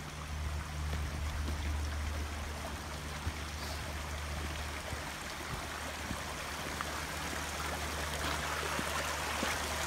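Shallow stream running and trickling over stones, a steady rushing that grows louder near the end as it gets closer. A low steady hum sits underneath.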